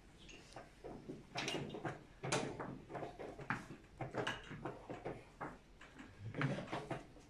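Chess pieces being set down on the boards and digital chess clock buttons being pressed during fast blitz play: irregular sharp taps and knocks, a dozen or so, some in quick pairs.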